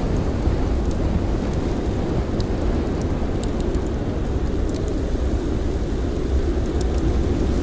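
Blizzard wind blowing in a steady, deep rumble, with a few faint, sharp campfire crackles scattered through it.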